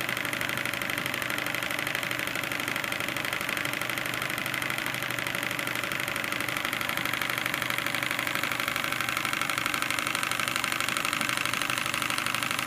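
Stuart 10H single-cylinder horizontal model steam engine running steadily on live steam, with a fast, even beat, turning a small dynamo.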